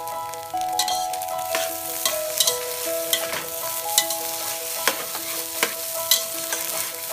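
Pineapple fried rice being stir-fried in hot coconut oil: a steady sizzle, with the utensil knocking and scraping against the pan every second or so as the rice is tossed.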